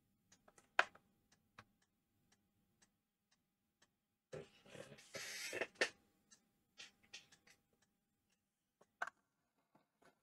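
Faint, scattered clicks and taps of small soldering tools being handled and put down on a workbench, with a brief rustling hiss about halfway through.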